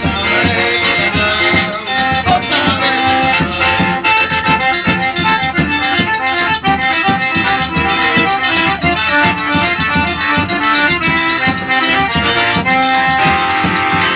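Live band music: an accordion plays an instrumental passage of held notes over a steady percussion rhythm, with no singing.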